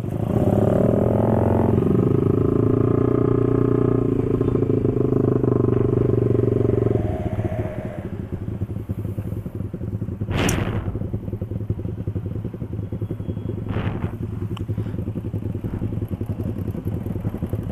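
Small single-cylinder motorcycles revving and pulling away, loud and steady for about seven seconds, then settling to a lower running note while riding. Two brief swells of noise come about ten and fourteen seconds in.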